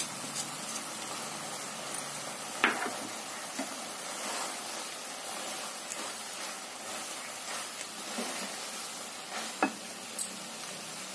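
Grated carrots sizzling in a kadhai while a spatula stirs milk powder through them, with a few knocks of the spatula against the pan, one about two and a half seconds in and two close together near the end.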